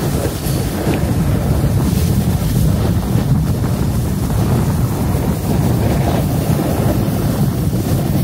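Wind buffeting a phone's microphone while riding fast down a ski run: a loud, steady, low rumbling rush.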